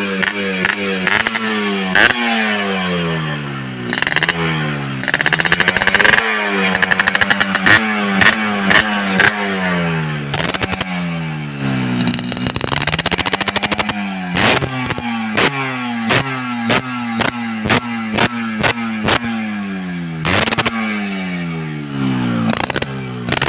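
Motorcycle fitted with an aftermarket RBK Muffler exhaust being blipped over and over while standing: the engine note rises with each throttle blip and falls back, every second or two. Sharp cracks and pops come from the exhaust as the revs drop.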